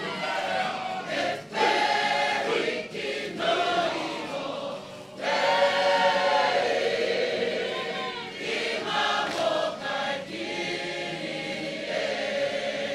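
Kapa haka group singing together in full voice as one choir, line by line with brief breaks between phrases.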